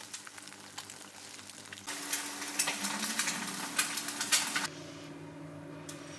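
Eggs frying in oil in a pan: a crackling sizzle full of fine spits and pops. It grows louder about two seconds in and drops away sharply about a second and a half before the end.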